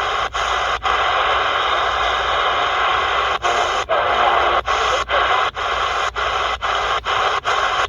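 Shortwave static hiss from a C. Crane CC Skywave SSB portable receiver's speaker, broken by about a dozen brief silent dropouts as the receiver is tuned step by step between stations.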